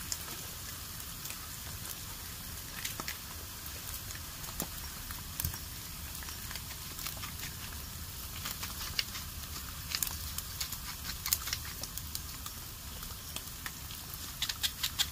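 Food frying on a hot camp grill: a steady sizzle with scattered pops and crackles, and a quick run of sharper clicks near the end.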